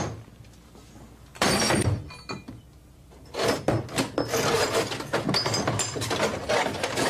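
Broken glass of a smashed television screen crunching and clinking as a skateboard is pulled out through it, in a short burst about a second and a half in and again in a longer stretch from about three and a half seconds on.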